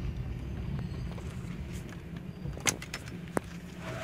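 Low, steady rumble of a car's engine heard inside the cabin as the car sits or rolls slowly, with two sharp clicks in the last couple of seconds.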